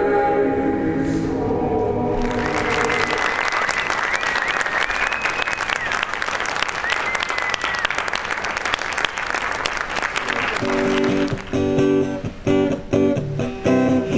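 Audience applauding: dense clapping that breaks in about two seconds in over the end of held music chords and fades out near the end, when strummed acoustic guitar music takes over.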